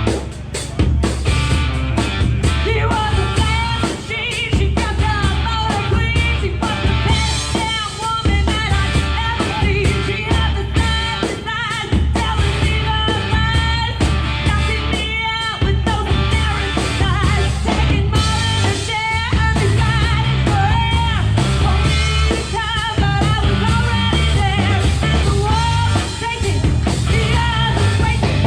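Live band playing rock music: drum kit, bass and guitar, with singing.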